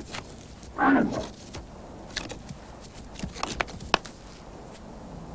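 Two bull elk fighting: one gives a short bellowing call about a second in, then several sharp clacks as their antlers knock together.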